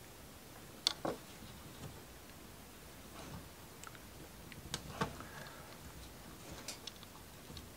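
Scattered light clicks and taps of wooden marble-run kit pieces being handled and fitted together by hand, a pair about a second in, another pair around five seconds in, and a few more near the end.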